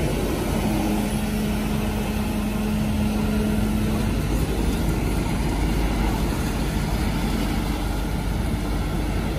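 Kobelco SK200 hydraulic excavator's diesel engine running steadily as the bucket digs mud, with a steady hum that holds through the first four seconds or so and then drops away.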